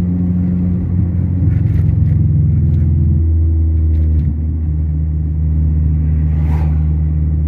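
A moving car's engine and road noise, a steady low drone whose pitch drops about three seconds in. An oncoming car passes with a brief whoosh about six and a half seconds in.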